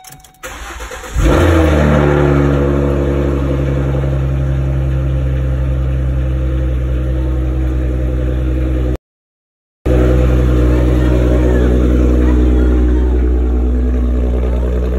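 2013 Ford Mustang's engine cranking on the starter and catching about a second in with a loud flare, then settling into a steady idle through its newly installed X-pipe exhaust. The sound cuts out completely for about a second partway through.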